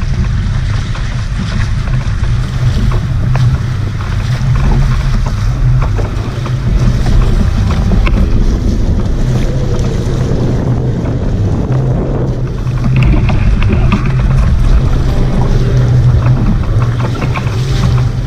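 Loud, steady wind buffeting the camera microphone, with water rushing and splashing along the hulls of a Nacra 500 beach catamaran under sail.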